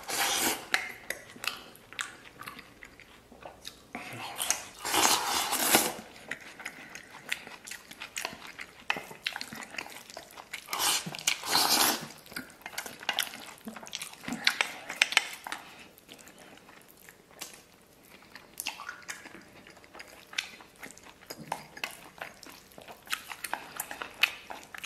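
Close-up eating sounds: wooden chopsticks clicking and scraping against a stainless steel bowl while rice and beef brisket are shovelled and slurped into the mouth in several noisy bursts, with chewing in between.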